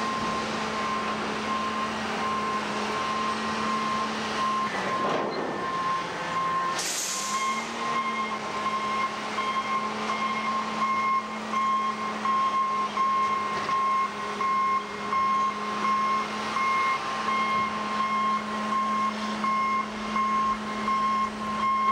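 Rubber-tyred container gantry crane at work: its engine running steadily, its pitch dipping briefly about five seconds in, while its warning alarm beeps repeatedly throughout. A short sharp hiss of air comes about seven seconds in.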